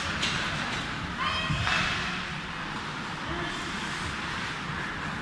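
Ice hockey play echoing around an indoor rink: skates scraping and hissing on the ice, with stick and puck clicks, and a short high-pitched call a little over a second in.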